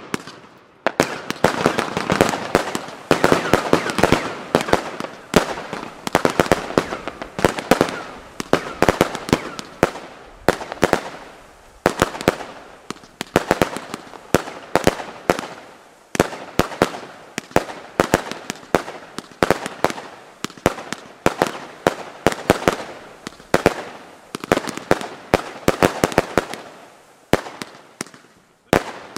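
Category 2 consumer firework pots (Lesli Royal Class Golden Kicks and Royal Redhead) going off one after another: dense, rapid sharp cracks in surges every second or two.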